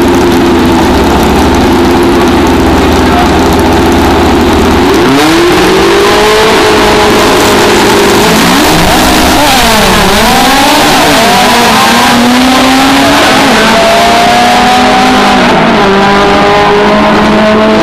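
Two drag race cars launching side by side: engines held steady at high revs on the line, then the launch about five seconds in, pitch climbing and dropping back at each gear change as they run down the strip. Very loud, overloading the recording.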